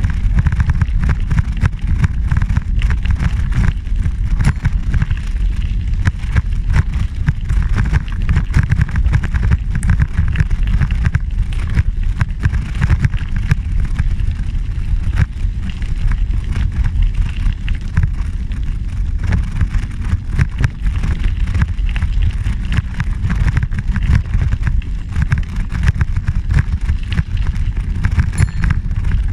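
Wind buffeting the microphone of a camera riding along on a bicycle, a loud steady rumble, with the constant crackle of tyres rolling over a gravel trail.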